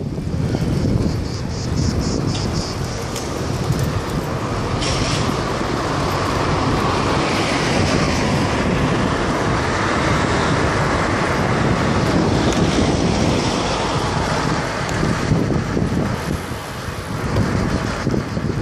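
Wind rushing over the microphone of a camera mounted on a moving road bike: a steady noise heavy in the low end, mixed with street traffic noise.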